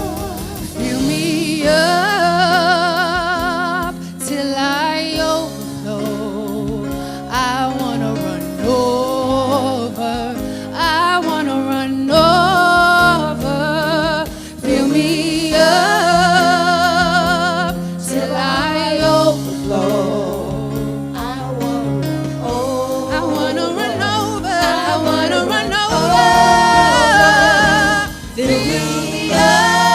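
Gospel worship song: a lead voice singing with wide vibrato over long held bass notes and a steady beat.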